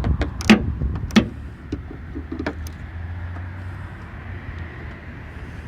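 Ratchet and 10 mm socket knocking and clicking against the wiper transmission bolts, about half a dozen irregular clicks in the first two and a half seconds as the socket fails to seat. A steady low hum runs underneath.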